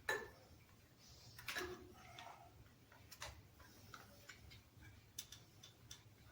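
Faint, scattered clicks and knocks of hands fitting a plastic LED tube and its rubber strap onto bicycle wheel spokes: a sharp click at the start, a brief scrape about a second and a half in, then a few small ticks.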